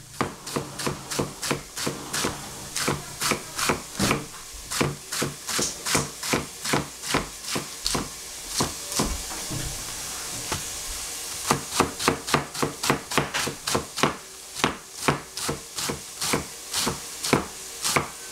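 A cleaver chopping cabbage on a plastic cutting board: a fast, even run of knocks, about four a second, with a brief break in the rhythm about halfway through.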